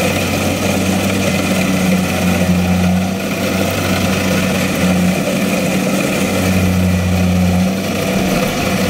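Tracked rice combine harvester's engine running steadily, a loud low drone whose lower tone swells and fades every few seconds as the machine works in deep mud.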